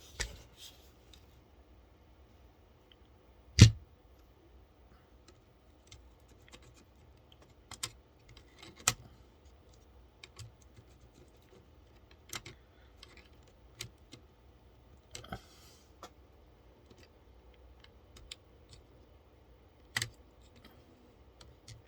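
Scattered small clicks and taps of computer parts being handled while a processor is seated in its motherboard socket, with one sharper knock a few seconds in.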